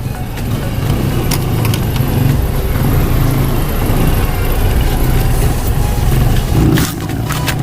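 Suzuki Raider 150 single-cylinder four-stroke engine running steadily through an aftermarket Akrapovic-style slip-on muffler fitted with its silencer insert and cover, with a short dip in level near the end.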